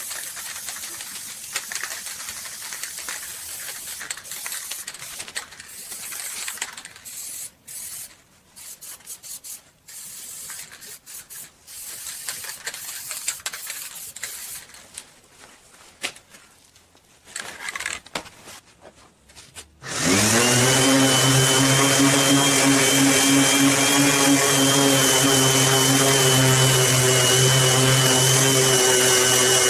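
Aerosol spray can hissing in short, irregular bursts as finish is sprayed onto a chair frame. About two-thirds of the way through, a random orbital sander starts up, rises briefly to speed, then runs steadily against a wooden board.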